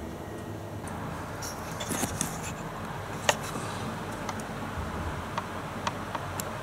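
Steady hiss of a rain shower, with a handful of sharp ticks; the loudest tick comes about three seconds in.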